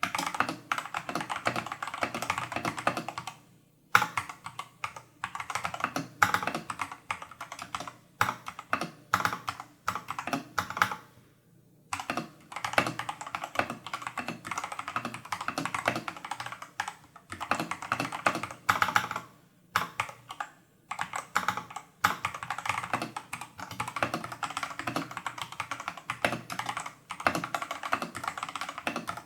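Continuous fast typing on a Tester68 custom mechanical keyboard with AliExpress Holy Panda clone tactile switches, still in their stock factory-lubed state, under XDA-profile keycaps: dense runs of key clacks. The typing breaks off briefly about 3.5 s in, again around 11 s, and twice near 20 s.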